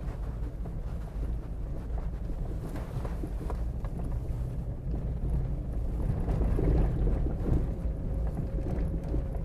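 Inside a car's cabin driving over rough unpaved ground: a steady low rumble of tyres and suspension with scattered light knocks, growing a little louder after about six seconds. No clanging or rattling comes from the chassis, the sign of a tight, well-sorted suspension.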